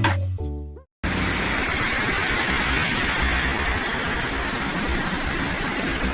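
Guitar music fades out, and about a second in a steady, even rushing noise cuts in abruptly and holds at one level.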